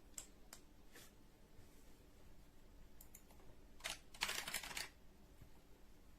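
Clicking and tapping on computer desk gear. A few single clicks come first, then a short flurry of rapid clicks about four seconds in.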